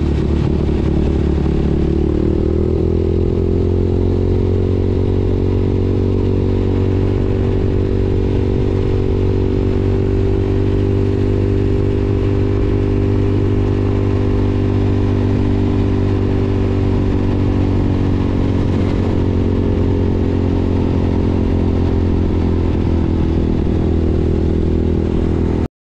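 Yamaha YFZ450R sport quad's single-cylinder four-stroke engine running under way at a steady cruise. It rises a little about two seconds in, then holds an even note, and the sound cuts off abruptly near the end.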